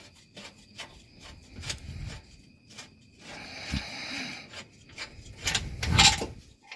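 Factory rear motor mount being worked loose by hand: scattered clicks and rubbing of metal and rubber parts, with a louder scrape about six seconds in.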